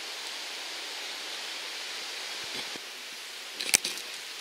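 Steady outdoor hiss, then a short burst of rustling with a sharp crack about three and a half seconds in, as someone pushes through ferns and undergrowth.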